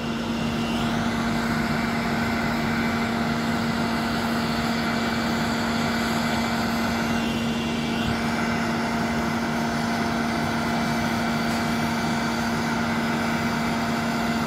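Jet aircraft running on an airport apron: a steady drone with a constant hum and a thin whine, unchanging in level.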